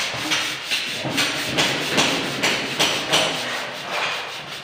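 Hand sanding of a wall with sandpaper: rhythmic rasping back-and-forth strokes, about two to three a second.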